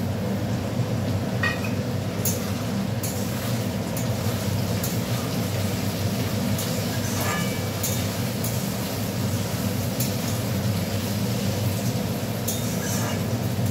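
Spatula scraping and clinking irregularly against a metal kadai as onion, potato and tomato are stirred, over a steady low hum.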